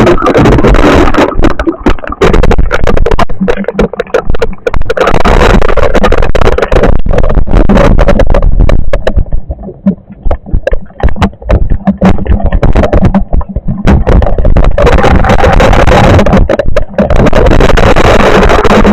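Loud, ragged storm noise overloading the microphone, heaviest in the low end and gusting irregularly, easing for a few seconds around the middle.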